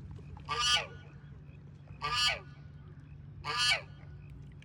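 A goose honking three times, evenly spaced about a second and a half apart, each honk a short call falling slightly in pitch, over a steady low hum.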